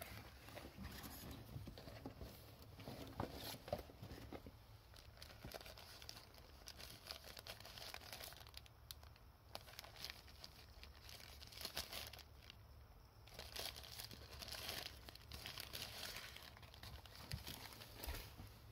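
Thin paper wrapper rustling and crinkling in irregular bursts as a cream puff is peeled out of its paper sleeve by hand.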